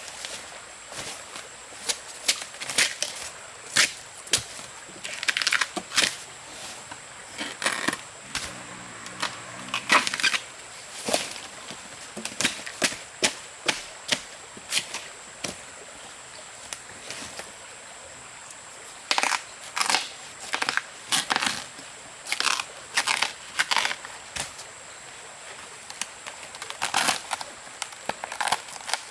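A run of irregular sharp cracks, knocks and crackles, some in quick clusters, with a lull of a few seconds near the middle; a faint steady high-pitched hum lies underneath.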